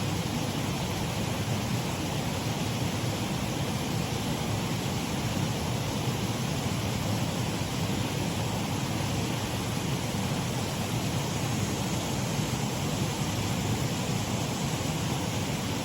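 Shallow waterfall on a stream: a steady, even rush of running water.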